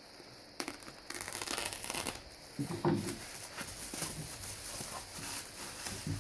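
Rustling and crinkling of packaging being handled, with scattered clicks and a dull knock about three seconds in.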